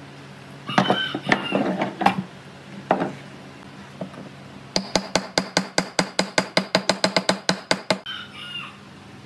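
A fast, even run of sharp metallic ratcheting clicks, about seven a second for some three seconds, while a steel bicycle crankset is worked into a wooden frame. Before and after it a chicken clucks, with some clattering of metal parts early on.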